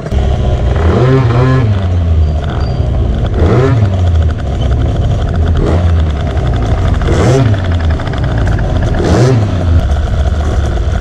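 Small two-stroke scooter engine running with a steady low drone, revved up and back down about five times, roughly every two seconds.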